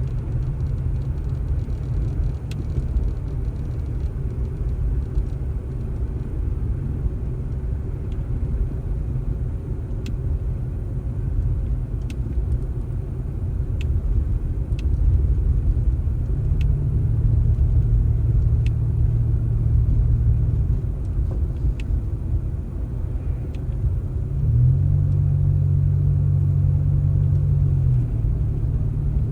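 Engine running with a steady low rumble, working harder in two stretches about halfway through and near the end, with a few faint ticks over it.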